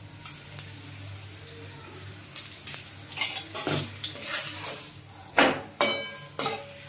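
Paneer paratha frying in oil in a metal pan, sizzling, while a metal spatula scrapes and knocks against the pan three times near the end.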